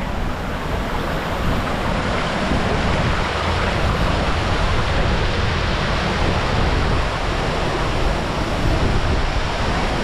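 Steady rush of falling water: a waterfall and the shallow stream running over rocks below it.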